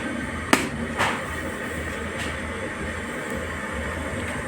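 Water at a rolling boil in a Scarlett 2-litre electric kettle with its lid open: a steady bubbling noise, with two short clicks about half a second and a second in.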